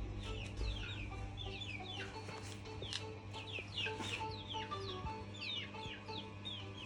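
Birds chirping busily: many short, falling chirps, several a second, over a steady low hum.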